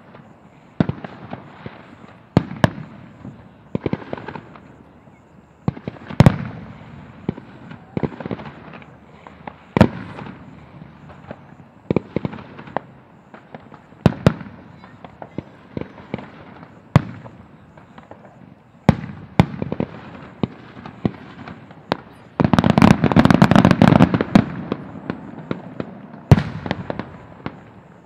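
Aerial firework shells bursting one after another, each a sharp bang every second or two trailing off in a rumbling echo. About three-quarters of the way through comes a loud, dense stretch of rapid overlapping bangs lasting a couple of seconds.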